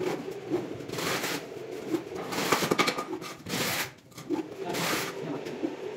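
Irregular scraping and rubbing strokes as a wooden board is worked against a large tile slab during setting.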